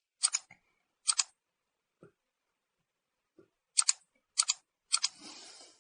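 Computer mouse clicking: five separate sharp clicks spread over a few seconds, each a quick double tick, then a brief soft rustle near the end.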